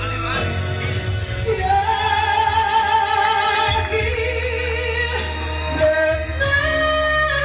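A woman singing into a microphone over musical accompaniment, holding long notes with vibrato over a steady bass line.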